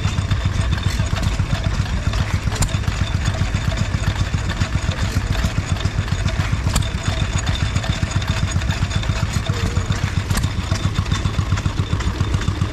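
Small vintage stationary engines running with a fast, even chugging beat, and a sharper click every three to four seconds.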